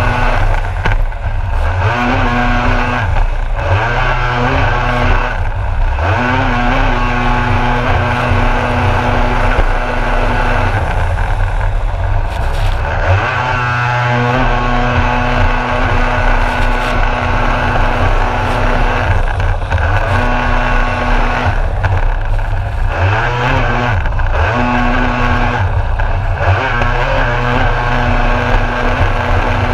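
Kawasaki SX-R stand-up jet ski engine running at high revs under hard throttle, with water spray hissing. Several times it drops off briefly as the throttle is eased for a turn, then climbs in pitch again as it picks back up.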